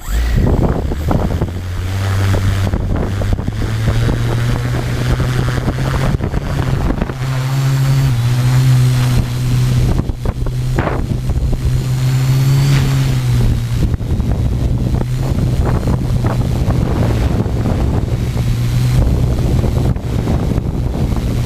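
Tarot 650 quadcopter's motors and propellers humming steadily, starting abruptly and shifting slightly in pitch now and then, with strong wind buffeting the onboard GoPro's microphone.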